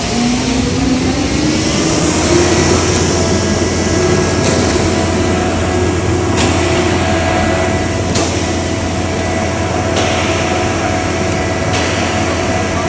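An engine speeding up over the first couple of seconds, then running steadily at high speed with a faint click about every two seconds.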